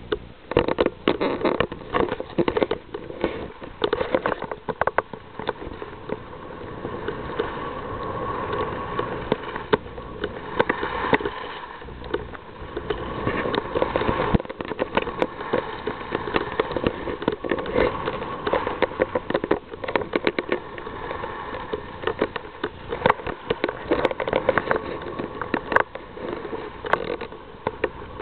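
Skis sliding and scraping over hard-packed snow while skiing downhill, with wind rushing over the microphone. Many short sharp scrapes and clicks come through the noise.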